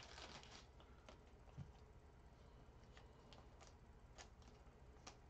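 Near silence with faint handling noise from trading cards: a short rustle at the start, a soft thump, then a few scattered light clicks as cards are moved and flipped.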